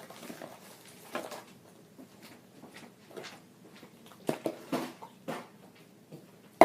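Spoon stirring a wet slime mixture of glue and contact solution in a bowl: irregular scrapes and squishy clicks, with a sharp knock at the very end.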